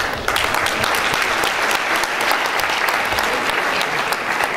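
Audience applauding, a dense even clatter of many hands clapping that eases a little near the end.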